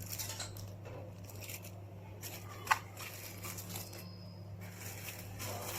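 Light crinkling and rustling of a small cellophane packet being handled, over a steady low electrical hum, with one sharp click about halfway through.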